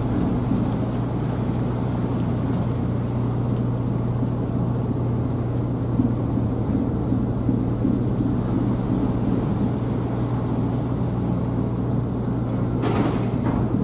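Engines of the JR Miyajima ferry running with a steady low hum while its propellers churn the water as it manoeuvres alongside the pier to berth. A brief, higher noise comes near the end.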